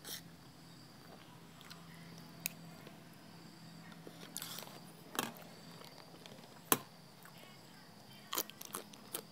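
A person eating close to the microphone: scattered sharp clicks and crisp crunchy bites, from spoon and fork against a ceramic bowl and from chewing pork rinds and raw yard-long beans.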